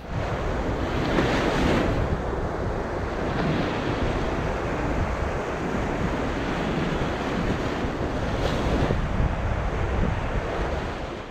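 Ocean surf washing onto a beach, with wind buffeting the microphone. The sound swells a few times and fades out near the end.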